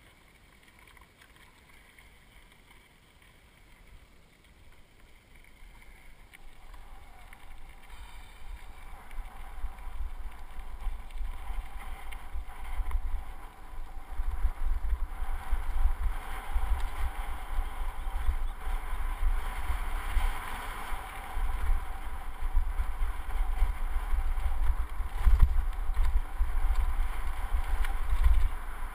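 Wind rumbling on the microphone of a riding mountain bike on a dirt trail. It is quiet at first, then builds steadily from about five seconds in as the bike gathers speed, and holds a steady loud rush for the rest of the ride.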